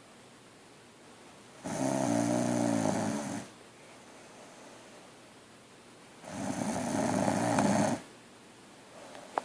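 A woman snoring in her sleep: two loud snores, each nearly two seconds long, the first about two seconds in and the second about six seconds in.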